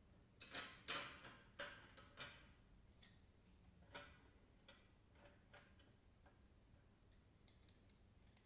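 Pencils and a plastic tray being handled in a tin pencil box: about half a dozen sharp clicks and taps in the first four seconds, then a few fainter ticks.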